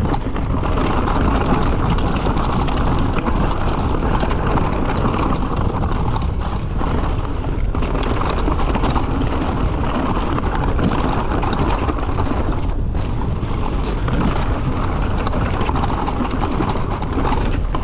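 Mountain bike riding fast down a rough, rocky trail: steady tyre noise over dirt and rock with constant rattling and clattering of the bike, and wind rushing over the microphone.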